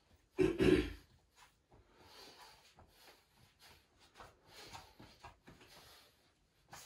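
Large mass of bread dough being kneaded by hand in a wooden trough: one heavy slap about half a second in, then softer pressing and rubbing sounds at irregular intervals as the dough is pushed and folded.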